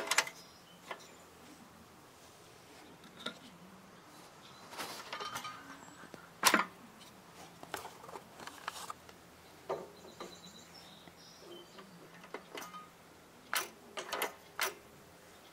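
Light handling noises: scattered single clicks and taps, a brief rustle about five seconds in and a cluster of clicks near the end, over a faint steady low hum.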